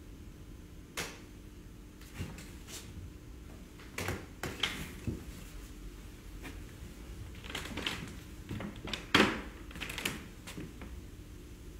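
Scattered soft knocks and rustles of one person moving about on a stage and handling things at a table, with a sharper knock about nine seconds in, over a faint steady hum.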